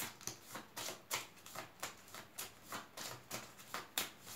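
A deck of cards being shuffled by hand: soft, regular card slaps about three to four times a second.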